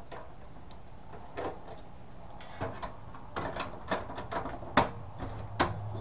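Clicks and light metal knocks of hands fitting sheet-metal drive-bracket parts inside an open desktop computer case: a few at first, then several a second from about halfway through, with two sharper clicks near the end.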